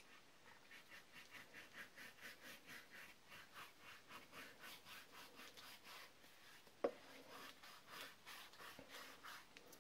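Faint rhythmic rubbing, about two to three strokes a second: chromium oxide paste being smeared onto a sanded balsa strop block. A single light knock about seven seconds in.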